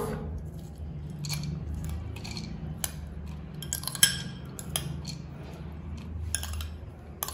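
Steel spoon clinking and scraping against a glass bowl and a plastic mixer jar while soaked fennel seeds are spooned in: scattered light clicks, with one sharper clink about four seconds in, over a faint steady low hum.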